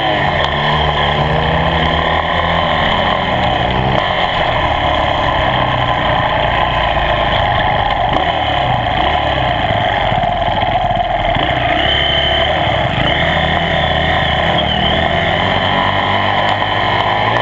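Dirt bike engine running under way on a muddy trail, its revs climbing and dropping in the first few seconds, then holding a fairly steady drone.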